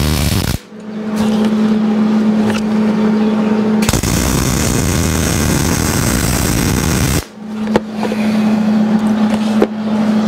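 MIG welder arc crackling and sizzling as it welds steel horseshoes. One burst of welding stops about half a second in, and a second runs for about three seconds from about four seconds in. A steady low hum fills the gaps between them.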